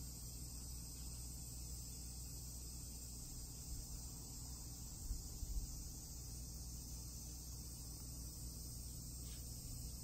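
Steady high-pitched drone of an insect chorus, with a brief low rumble about five seconds in.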